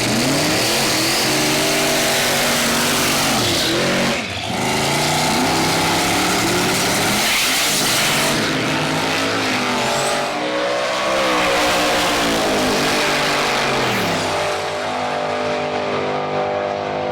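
Procharged 540-cubic-inch big-block V8 in a Chevy Nova race car, revving up and falling back several times over a heavy rush of noise, then holding a steadier pitch near the end.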